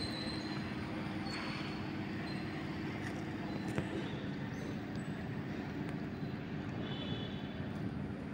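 Steady low hum of an idling engine, with a few faint, short high chirps above it.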